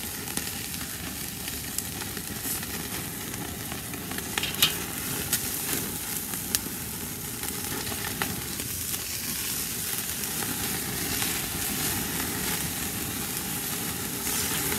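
Beef prime rib roast sizzling as it sears over flaring charcoal on a kettle grill: a steady hiss broken by a few sharp pops and crackles, the loudest about four and a half seconds in.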